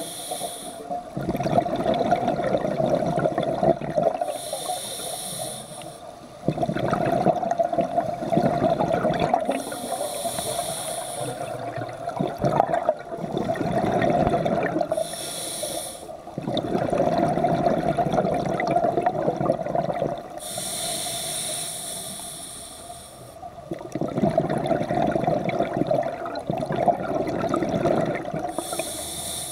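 Scuba diver breathing through a regulator underwater, about five breaths. Each inhale is a short hiss, and each longer exhale is a loud burst of bubbling.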